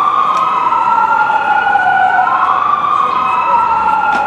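Fire engine's electronic siren on a slow wail, its pitch rising and falling about every two seconds as the engine responds to a call.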